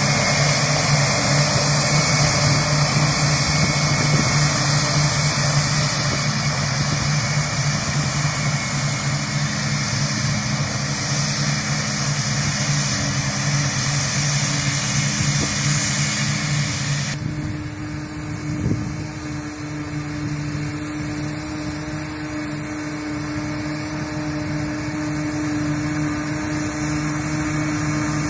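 Self-propelled forage harvester running steadily while picking up and chopping grass, a continuous drone of engine and machinery with a tractor working alongside. A bit past halfway the sound changes abruptly, losing much of its hiss and leaving a steadier hum.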